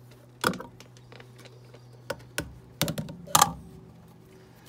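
Several sharp metallic clicks and knocks as a screw-in compression gauge is gripped and turned in a spark plug hole during a compression test. The loudest come about half a second in and around three and a half seconds, over a steady low hum.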